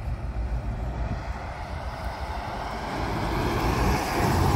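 A 1977 Lincoln Continental Town Car with its V8 engine drives past, growing steadily louder as it approaches and passes close by about four seconds in.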